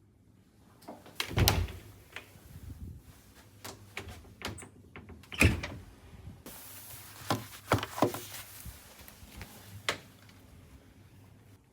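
A series of knocks and clunks, two heavier thuds standing out about a second and a half and five and a half seconds in, with a steady hiss joining halfway through.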